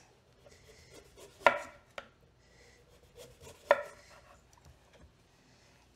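Chef's knife slicing through watermelon and knocking on a wooden cutting board. Two sharp chops come about a second and a half and three and a half seconds in, with a smaller knock and faint taps between them.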